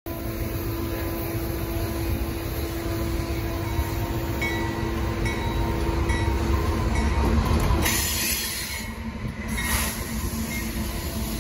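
A BNSF freight train with GE diesel locomotives on the point passes close by. The locomotives' low engine rumble builds to its loudest about seven to eight seconds in as they go past, then eases into the lighter rolling rumble of the autorack cars on the rails.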